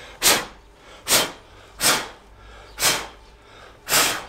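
Five short, sharp puffs of breath close to the microphone, evenly spaced about one a second.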